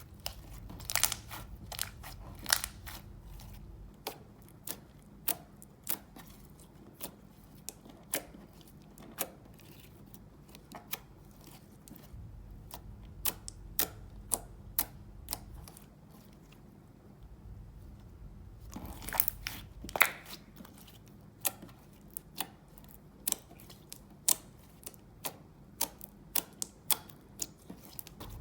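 Slime being worked by hand, giving irregular sharp clicks and pops, a few each second, with a quick run of louder pops about two-thirds of the way through.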